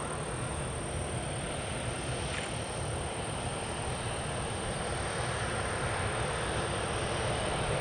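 Jet airliner's engines heard across the airfield, a steady low rumble as the plane rolls out along the runway just after landing, growing a little louder near the end.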